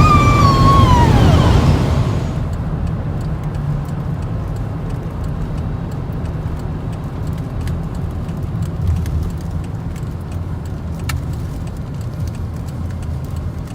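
Steady low road and engine rumble heard inside a moving car's cabin, with a few faint ticks. About two seconds in, some gliding pitched notes, most likely the tail of music, fade out.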